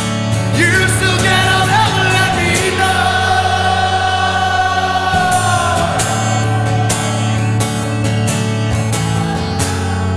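A man singing over a strummed acoustic guitar in a solo acoustic performance. The voice holds one long note through the middle, then the guitar strumming carries on with little voice near the end.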